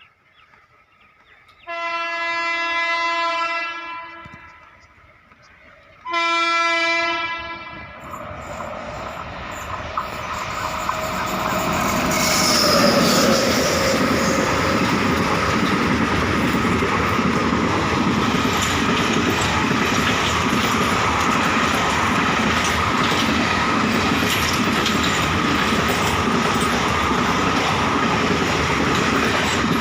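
A WAP-7 electric locomotive's horn sounds twice, a blast of about two seconds and then a shorter one. Then the express train passes at high speed: a steady rush of wheels on rail with rhythmic clickety-clack over the rail joints.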